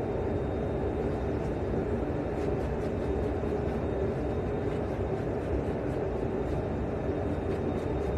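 Steady low rumble of a private jet's cabin noise with its engines running, with a faint high-pitched whine.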